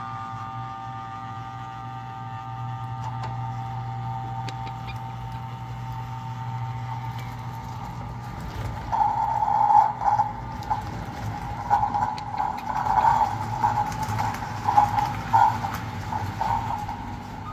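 American Flyer S gauge EP-5 model electric locomotive running with its passenger cars on the track, giving a steady motor hum and whine. About halfway through, a louder, wavering high tone joins in and keeps rising and falling as the train rounds the curve.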